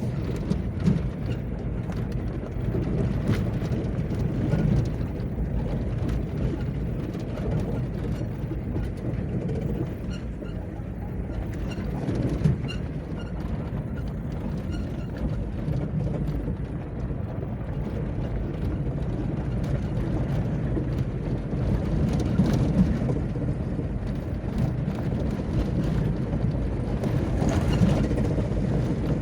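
Road noise inside a moving car: a steady low rumble of the engine and tyres, with occasional knocks and rattles.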